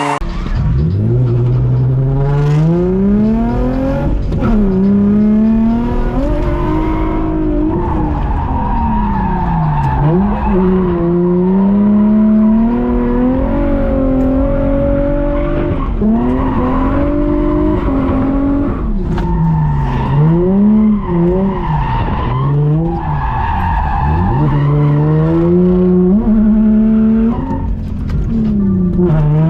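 Drift car's engine revving up and down over and over as the car slides, with tyre squeal from the spinning rear tyres.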